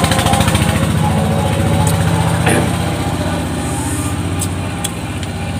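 An engine running steadily with a fast, even beat, easing a little in level about halfway through.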